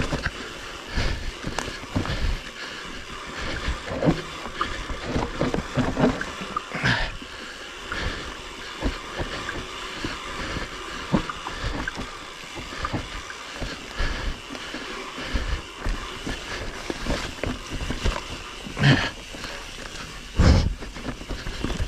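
Mountain bike riding down a dirt forest trail: tyres rolling over loose soil and leaf litter, with the bike rattling and knocking over bumps and roots, and two louder knocks near the end.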